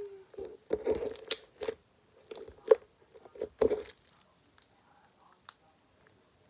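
Homemade blue glitter slime being squished and worked by hand, giving a string of short pops and clicks over the first four seconds or so.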